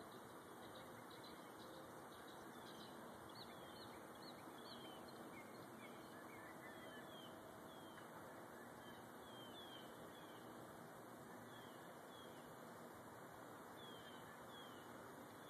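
Faint birdsong from unseen birds: short, high, downward-slurred chirps, repeated every second or so, over a steady background hiss.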